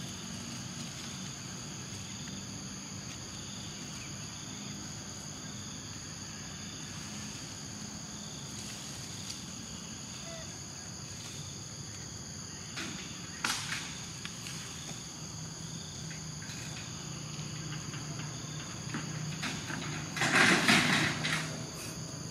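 Steady outdoor insect chorus, several high-pitched tones holding on without a break. A couple of sharp clicks come about halfway, and a brief, louder noisy burst near the end.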